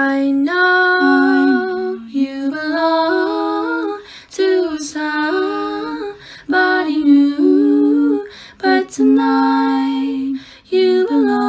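A woman's voice singing a slow, wordless melody in long held notes, lullaby-like, in phrases of about two seconds with short breaks between them.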